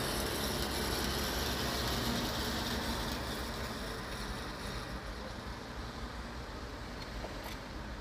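Street traffic: a steady rush of cars and motorbikes driving past, slowly fading over the first few seconds.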